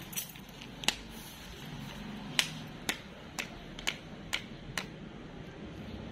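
A cat crunching dry kibble, a string of short sharp crunches about two a second.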